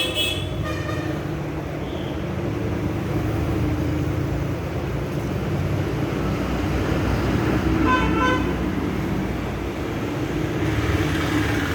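Background traffic, with a vehicle horn tooting briefly at the start and again about eight seconds in.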